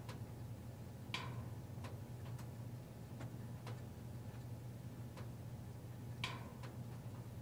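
Sharp, slightly irregular ticks, about one or two a second, two of them louder, over a steady low hum.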